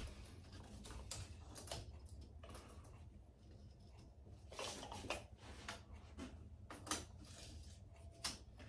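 Faint, scattered clicks and light taps from handling a tape measure and small loose hardwood pieces of a dry-laid cutting board layout, over a low steady room hum.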